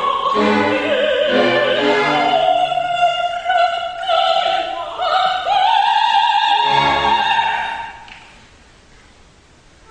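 Operatic mezzo-soprano singing with vibrato over an orchestra. She holds a long high note that stops about eight seconds in, leaving the orchestra playing quietly.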